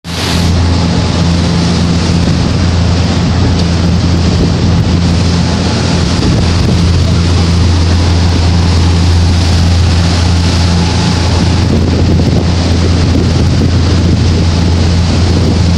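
Tour boat's engines running steadily underway, a constant low drone with a second steady tone above it, over the rush of the wake and wind buffeting the microphone.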